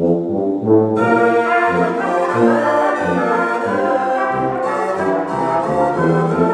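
Brass quintet playing a rag, with French horn, tuba and trumpets. The low brass comes in together after a pause, and the higher trumpet parts join about a second in.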